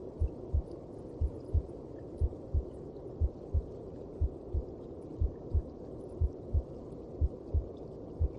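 Heartbeat heard inside a mother's belly: a steady lub-dub double beat about once a second, with a steady low whoosh underneath.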